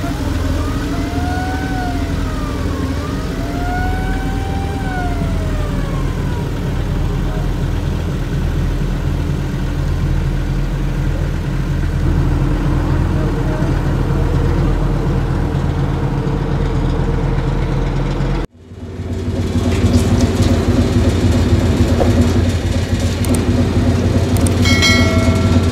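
Steady drone of a river ferry's engine heard from on board. In the first few seconds a rising-and-falling tone sounds twice over it. About two-thirds of the way through the sound cuts and comes back as a louder engine drone, and a short chime sounds near the end.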